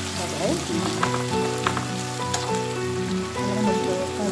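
Hilsa fish pieces sizzling as they fry in hot oil in a nonstick wok, with a few sharp clicks of a slotted spatula against the pan as the pieces are turned. Soft background music with held notes runs underneath.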